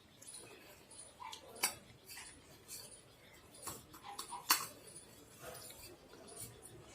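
A small child eating crunchy namkeen bhujia: soft, scattered crunches and clicks, with two sharper clicks about a second and a half in and near the middle, and small mouth sounds.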